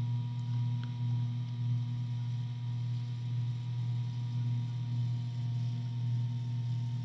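Steady low electrical hum with a fainter higher steady tone above it, and one faint click about a second in.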